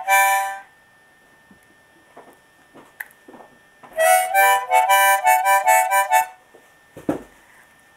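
A toddler blowing and drawing on a harmonica. A short chord sounds at the start, then after a pause of a few seconds comes a run of about nine quick chords that alternate between two pitches for about two seconds.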